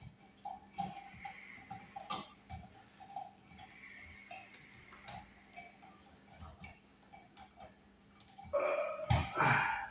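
Small clicks and scratchy ticks of hands twisting electrical wires together at a switch box, with a brief louder vocal sound near the end.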